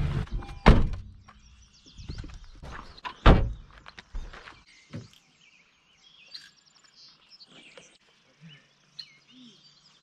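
Two dull, heavy thunks about two and a half seconds apart, then quiet with birds chirping.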